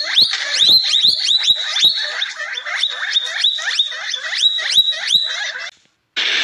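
An animal giving a rapid series of short, high, upward-sweeping calls, about three a second, that stop abruptly near the end.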